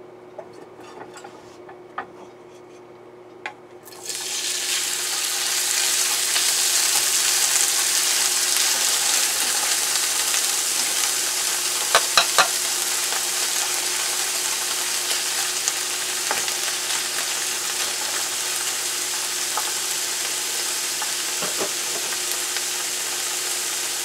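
Sliced mushrooms sizzling in hot cooking oil in a nonstick frying pan. The sizzle starts suddenly about four seconds in as they go into the pan, then runs steadily while they are stirred with a wooden spatula, with a few sharp knocks near the middle.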